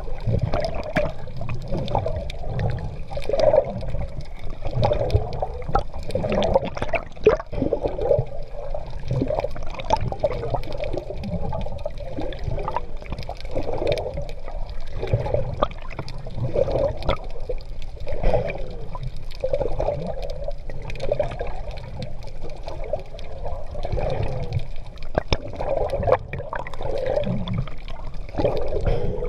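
Sea water splashing and gurgling around a swimmer, swelling in repeated surges roughly once a second or so.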